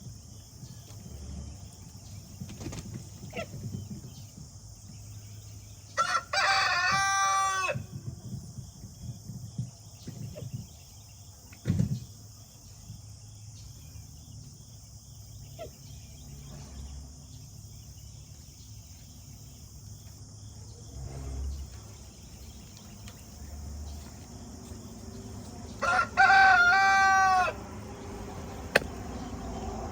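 A rooster crowing twice, each crow about two seconds long, once about six seconds in and again near the end, with a few scattered knocks in between.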